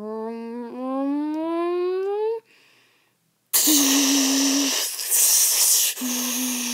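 A voice makes a long, drawn-out monster roar that climbs slowly in pitch, then stops for about a second. Loud hissing blasts follow, with a hummed tone under them: a mouth-made sound effect for a monster's breath-ray attack.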